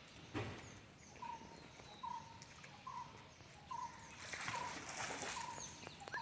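A bird repeats a short single note about once a second, with thin higher chirps from other small birds. About four seconds in comes a second or so of splashing as rhesus macaques play in the muddy water.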